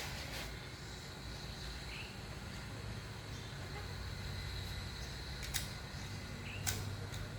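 Gunshots at a shooting range: three sharp, short reports, one right at the start and two more about five and a half and just under seven seconds in, over a low steady hum.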